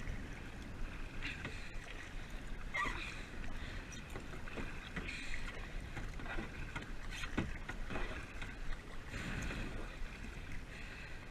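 Kayak paddle strokes splashing in the water about every two seconds, over a steady low rumble, with one brief sharp knock a little past the middle.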